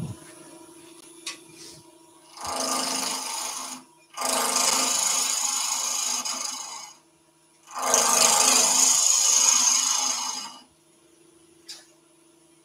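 Woodturning gouge cutting into a spinning wooden bowl blank on a lathe, in three cutting passes of a few seconds each, the blank having end grain and side grain all round. Between the passes the lathe's steady motor hum carries on.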